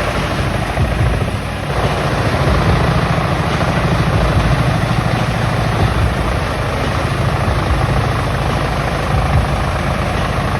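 Heavy forestry machine running steadily under load: a loud, dense engine and mechanical din with a fast low throb throughout.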